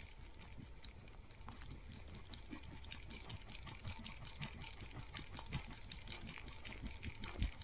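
A dog's paws pattering on a gravel forest track as it walks, in quick uneven steps with low thumps, and one louder thump near the end.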